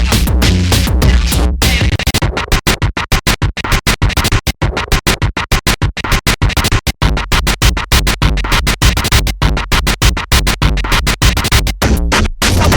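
Electronic music with rapid chopped, stuttering edits. The deep bass drops out about two seconds in and comes back around seven seconds in.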